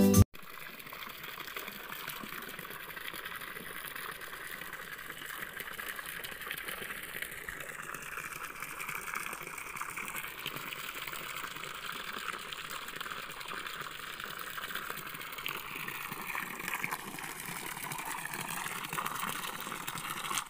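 Steady splashing of a small fountain jet falling back into a garden lily pond.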